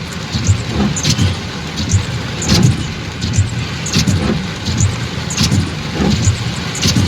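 Car driving in heavy rain, heard from inside: a steady low engine and road rumble, with irregular short splashes and taps of rain on the car.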